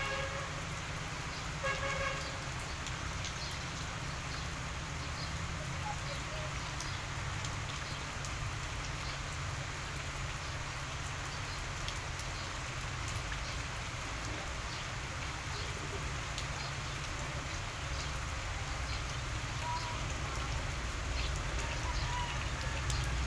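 Steady outdoor background hiss over a low rumble, with two short pitched toots about two seconds apart near the start.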